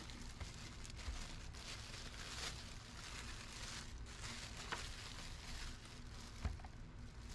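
Thin plastic bag crinkling and rustling as it is pulled off a small handheld air blower, with a few small clicks and a soft knock near the end.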